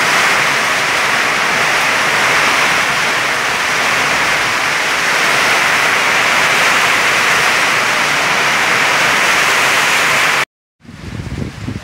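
Heavy rain and hail pouring down in a violent storm: a loud, steady rushing hiss that cuts off suddenly near the end.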